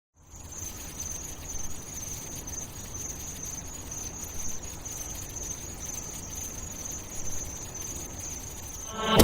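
Steady high-pitched insect chorus, a continuous shrill band like chirping crickets, over a low background rumble.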